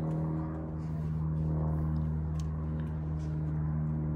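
A steady, even engine or machine hum that holds one pitch throughout, with a few faint clicks over it.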